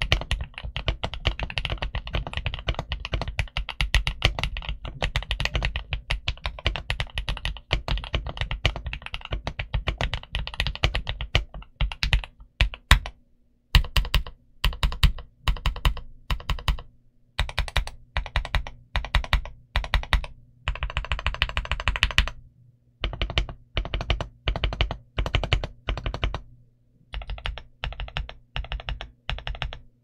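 Mechanical keyboard being typed on, unmodified: a GMK67S with Gateron Glory Ultra Pro Yellow linear switches and Womier double-shot PBT keycaps. Fast, continuous typing for about the first twelve seconds, then slower separate keystrokes and short runs of presses with pauses between them.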